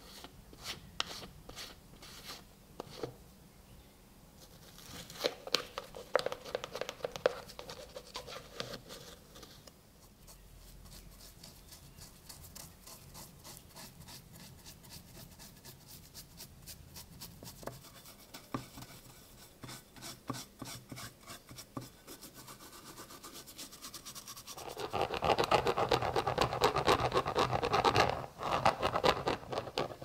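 A brush scrubbing cold bluing solution over the cleaned iron parts of an antique padlock, making rapid scratchy rubbing. A few light clicks come first, and the scrubbing is loudest and densest near the end.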